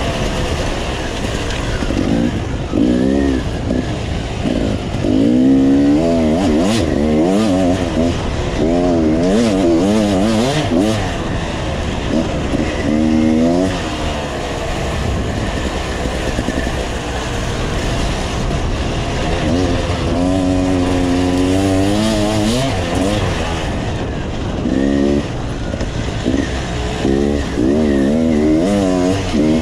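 Off-road enduro motorcycle engine being ridden hard, its pitch rising and falling again and again with quick bursts of throttle and gear changes, over a steady hiss of wind and riding noise.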